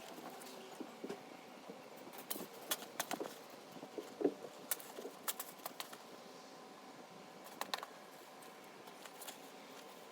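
Shovel digging in stony, gravelly ground: irregular sharp clinks and scrapes as the blade strikes stones, clustered in the middle and again near the end.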